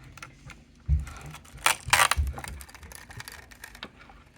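Hands working on the laptop's plastic and metal parts, with scattered clicks and taps, a low thump about a second in, and a few brief scraping noises around two seconds in.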